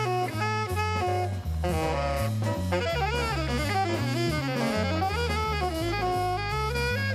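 Jazz soundtrack music: a saxophone playing a melody over a walking bass line and drum kit.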